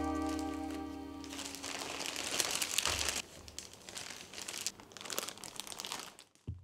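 Thin plastic bread bag crinkling and rustling as it is handled with rolls inside, under the last of a music chord that fades out during the first second.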